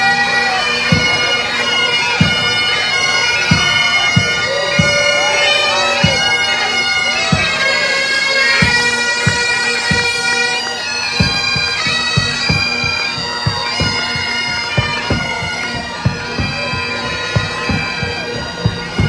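Pipe band playing a march: bagpipes sound a melody over their steady drones, with regular drum beats keeping time.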